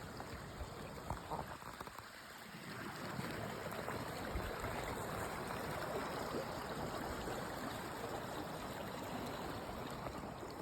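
Steady rush of running water from a stream. It dips briefly about two seconds in, then comes back fuller.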